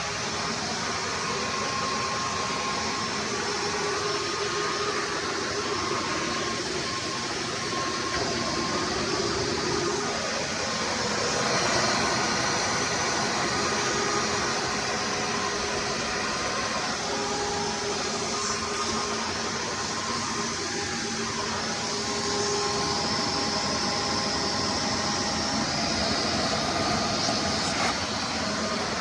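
Hoover Runabout Deluxe vacuum cleaner running steadily, a constant motor and airflow noise with faint tones that wander a little in pitch.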